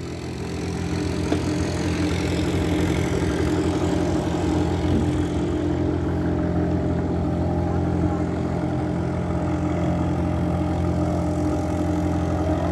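A sailboat's auxiliary engine running at a steady speed as the boat motors along, growing louder over the first couple of seconds and then holding even.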